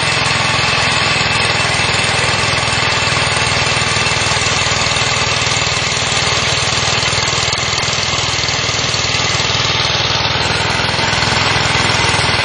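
Electric core cutting machine running steadily, its core barrel boring into a concrete block as the operator presses the feed handle down: a continuous motor drone with the grinding of the cut.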